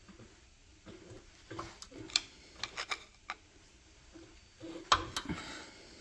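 A screwdriver tip prying and scraping at a corroded connector on an A/C thermal switch, making scattered small clicks and scrapes. The sharpest comes about five seconds in. The connector is stuck fast by corrosion.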